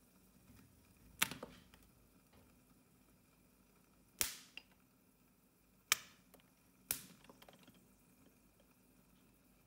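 Popcorn kernels heating in oil in a miniature wok, popping open with four sharp cracks spread over a few seconds.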